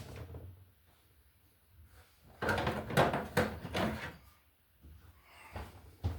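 A burst of clicks, knocks and rattling as the old wall receptacle and its wires are worked with hand tools in the outlet box, for about two seconds in the middle.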